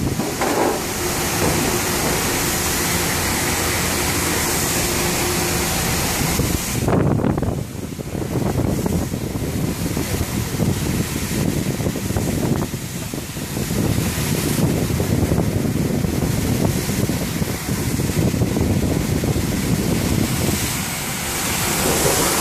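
SYY-350 industrial crate-washing machine running: its pump and water spray jets make a steady hiss, dipping briefly about seven and thirteen seconds in.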